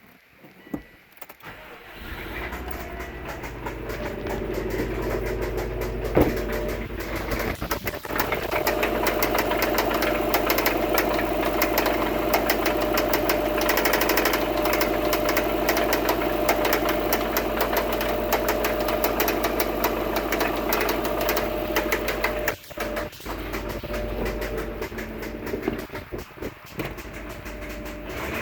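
2002 Subaru WRX's turbocharged 2.0-litre flat-four engine starting about two seconds in and then running, with a rapid ticking over the engine note. It gets quieter about three-quarters of the way through.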